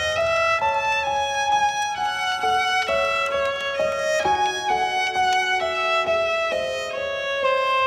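Violin playing a melody of held notes that change about every half second: a version of a TV series' episode-transition jingle.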